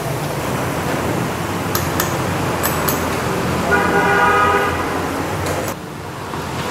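Steady road traffic noise with a vehicle horn sounding for about two seconds, starting nearly four seconds in. A few light clicks come earlier, and the traffic noise drops away near the end.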